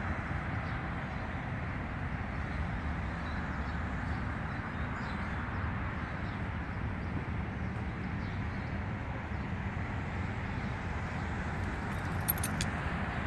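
Road traffic: the steady rumble of trucks and a minibus driving past. One short sharp click about twelve seconds in.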